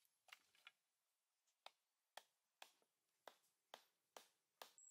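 Near silence, broken by about nine faint, short clicks or taps, roughly two a second.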